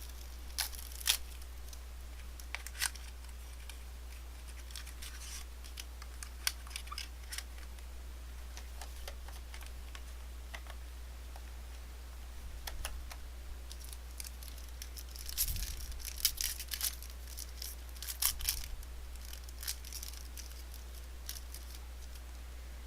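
Scattered clicks and rustles of a Topps Museum Collection mini box being opened and its cards handled: packaging tearing and cardboard and cards sliding. The handling grows busier about two-thirds of the way in, over a steady low electrical hum.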